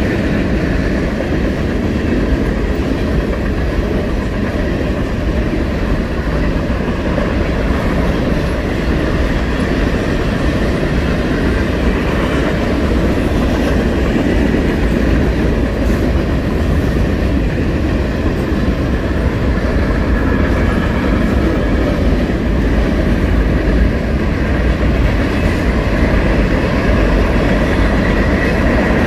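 Mixed freight train rolling past, its cars passing steadily: a continuous, even rumble of steel wheels on rail.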